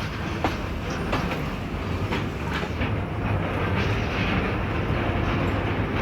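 Passenger train running on the rails: a steady rumble of the wheels, with sharp clacks over the rail joints at irregular intervals.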